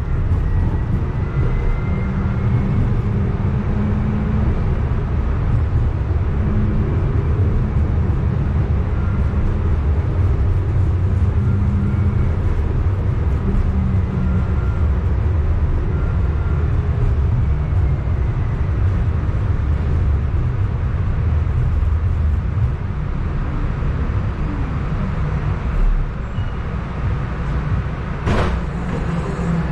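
Running noise of a Siemens S70 streetcar heard from inside: a steady low rumble of the motors and wheels on the rails, with short whining tones. In the last third it gets quieter with a falling whine as the car slows to a stop, and there is a sharp clunk near the end.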